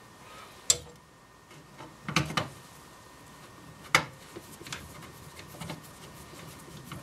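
Small screws and a screwdriver clicking against the metal bracket of a Sony CDP-CX350 CD changer as the bracket screws are set and driven in: sharp clicks about a second in and again near four seconds, a short clatter around two seconds, then faint ticking.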